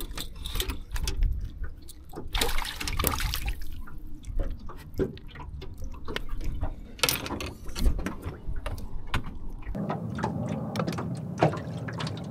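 Water splashing and dripping as crappie clipped onto a metal stringer are handled and lowered over the side of an aluminium jon boat, with scattered irregular clicks.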